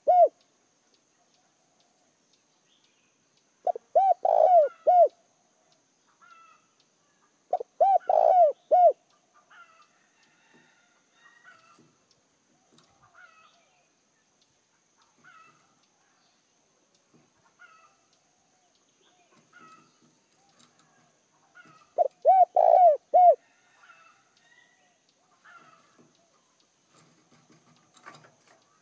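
Spotted dove decoy cooing: three phrases of a few low, rounded coo notes each, about four, eight and twenty-two seconds in, with the tail of another phrase at the very start. Faint chirps sound in between.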